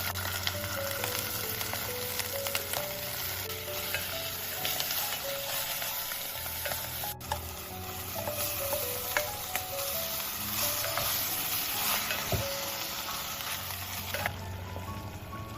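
Food sizzling as it fries in a hot oiled pan and is stirred, with occasional taps and scrapes of the utensil; the sizzling stops near the end.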